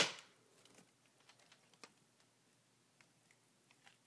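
A homemade rubber-band-powered Lego gun: the end of a sharp snap dying away at the start, then a few faint, scattered plastic clicks and ticks as the Lego gun is handled.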